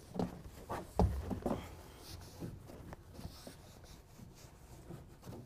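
Rag wiping the painted side wall of a pickup bed with rubbing alcohol: a few quick rubbing strokes with a thump about a second in, then fainter rubbing.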